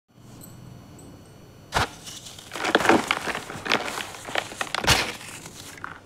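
Dry sand-cement cast being crushed by hand. A sharp crack comes just under two seconds in, then gritty crunching and cracking as the cement crumbles, with another loud crack about five seconds in.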